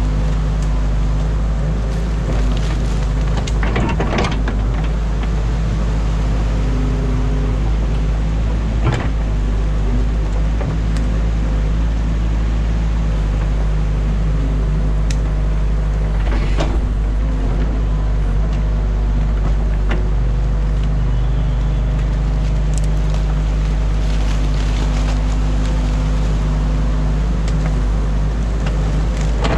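Excavator's diesel engine running steadily, heard from inside the cab, with the hydraulics working the boom and bucket. A few sharp knocks from the bucket and its load of mud and branches stand out over the engine.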